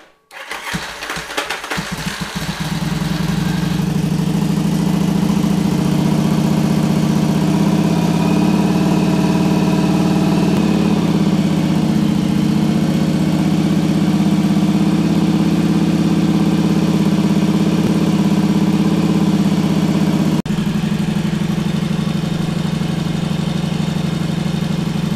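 Yamaha Virago V-twin motorcycle engine cranking for about a second and a half, then catching and idling steadily. It is running on the cylinder whose stripped spark plug threads were just repaired with a Time-Sert insert. There is one brief break in the sound near the end.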